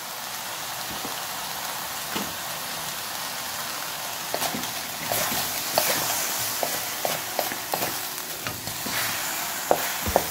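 Chicken pieces sizzling in a hot wok. From about four seconds in, a spatula stirs them, knocking and scraping against the wok in a run of short clicks, with the sizzle surging louder as the meat is turned.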